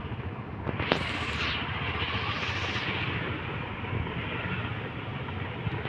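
Pot of kadha boiling hard, a steady rushing hiss with a couple of sharp crackles about a second in.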